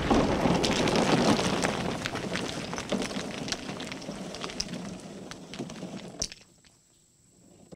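Crash sound effect tailing off: a dense rattle and crumble of falling rubble with scattered sharp clicks of pieces landing, fading steadily and stopping about six and a half seconds in.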